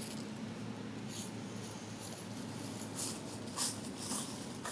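A macaque foraging in dry leaf litter: a few short, crackly rustles, the loudest about three seconds in and again half a second later, over a steady low background hum.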